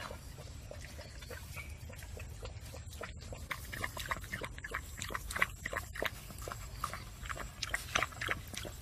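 Young puppies squealing and whimpering in short, quick cries that come thicker and louder about halfway through.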